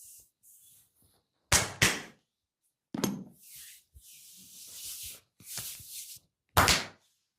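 Hands striking a person's body in a massage: a few sharp slaps, two in quick succession about a second and a half in, another about three seconds in and a last one near the end, with hissy rubbing of hands over skin or hair in between.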